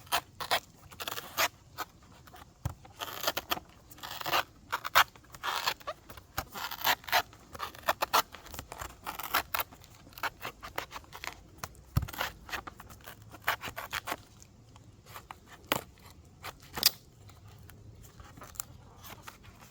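Small Swiss Army knife blade scraping and cutting into a water coconut in short, irregular strokes as it circles the top to open it. The strokes come thickly at first and thin out to a few sharp clicks near the end.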